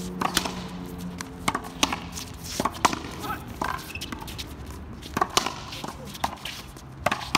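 Outdoor racquetball rally: a racquetball cracking off racquets and a concrete wall in sharp, irregular hits, with players' brief calls. A low steady hum fades out in the first second or so.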